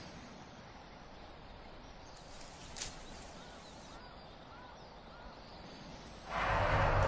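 Quiet forest ambience with a few soft, repeated bird chirps in the middle. A much louder, fuller rush of sound comes in suddenly near the end.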